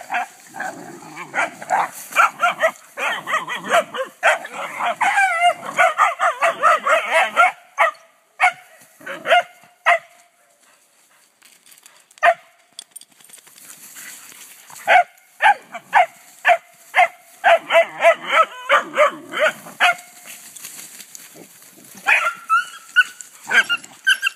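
Several dogs barking at one another in rough play-fighting: runs of short, sharp barks, a brief lull of a second or two around the middle, then more barks and higher-pitched yips near the end.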